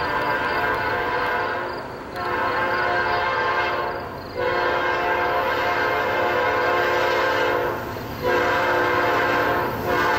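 A freight locomotive's multi-chime air horn sounds a chord in repeated blasts with short breaks between them, over the low rumble of the approaching train.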